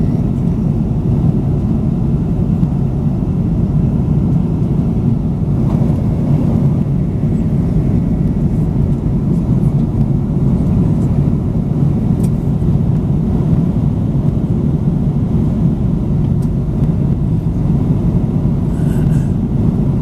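Steady low rumble inside a jet airliner's cabin at cruise: Rolls-Royce turbofan engines and airflow over the fuselage, unchanging throughout.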